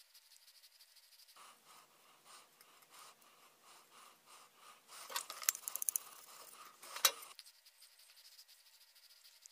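Thin tape being picked and peeled off a glazed ceramic pot with a pointed tool: soft scraping and rubbing starting about a second and a half in, with a quick run of sharp clicks about five seconds in and one louder click about seven seconds in.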